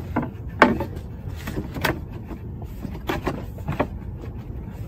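Plywood shooting-table top being set onto its interlocking plywood base and pressed into place: a series of wooden knocks, the loudest about two-thirds of a second in.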